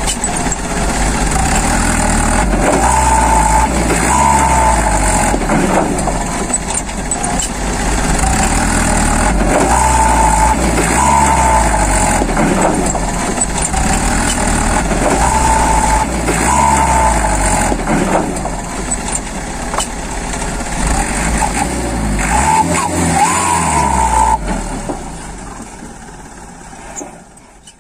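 Heavy truck engine sound effect, running and revving in a loop that repeats about every six seconds, fading out over the last few seconds.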